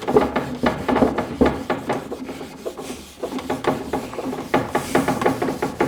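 Very fine wire wool with furniture cleaner being rubbed back and forth over the top of a mahogany table in repeated strokes, pausing briefly about three seconds in. It is a gentle cleaning to lift old dirt and grime off the original finish.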